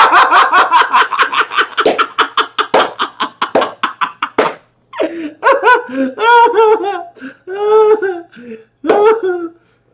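A man laughing hard: a fast run of laughter pulses, about five a second, then after a short break near the middle, longer high, wavering laughs broken by short gasps.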